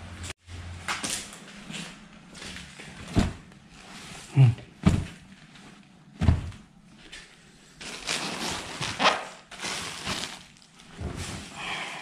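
Belongings being handled and moved about: a string of knocks and thuds, the loudest two close together a little over four seconds in, with rustling around eight to ten seconds in.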